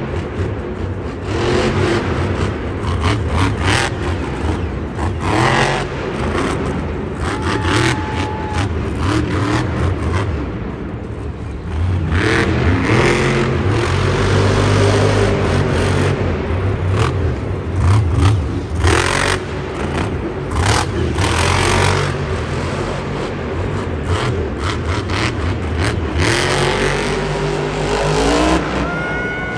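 Monster truck's supercharged V8 engine revving up and down, with repeated sharp bangs through it.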